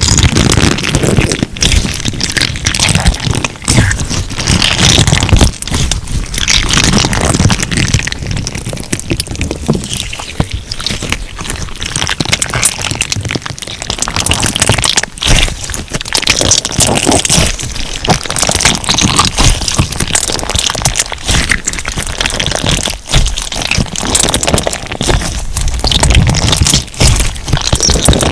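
Crunchy slime being squeezed and handled by hand: a dense, continuous crackling that swells and eases unevenly.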